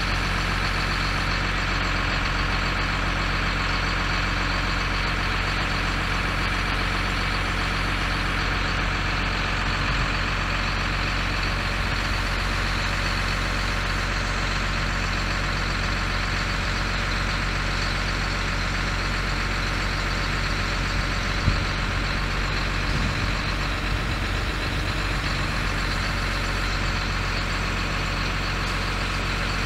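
Ford 6.6-litre inline-six diesel engine of a 1989 Ford F800 bucket truck running steadily, with one sharp click about three-quarters of the way through.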